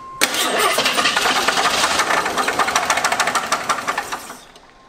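AMC Eagle engine catching on a shot of spray in the carburettor and running for about four seconds with a loud, rapid knock, then cutting out near the end. The knock is a big rod knock, from a bottom end run short of oil.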